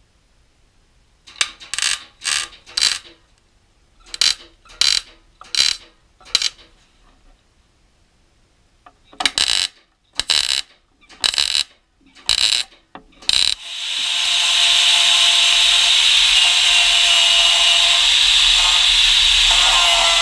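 MIG welder laying a string of short tack welds on a steel patch panel, about a dozen brief crackling bursts in three groups. About fourteen seconds in, an angle grinder spins up and grinds the welds down with a steady, loud grinding noise.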